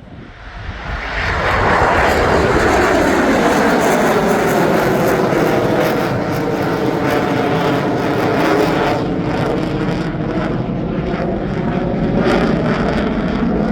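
Fixed-wing aircraft flying past, a loud engine roar that builds over the first couple of seconds and then holds, its pitch sweeping downward as it passes.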